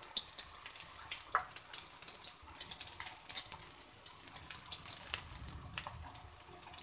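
Egg-dipped beef shami kababs shallow-frying in oil on a tawa: a steady sizzle with a stream of sharp pops and crackles of spattering oil.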